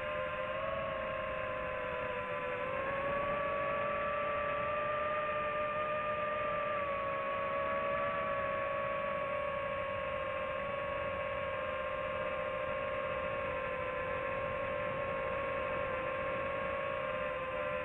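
FPV quadcopter's electric motors whining, several close tones at once. The pitch rises slightly about two and a half seconds in and eases back down around seven seconds, following the throttle.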